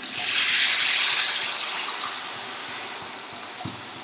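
Water poured from a vessel into a hot kadai of frying curry: a sudden loud hiss as it lands, fading slowly over the next few seconds.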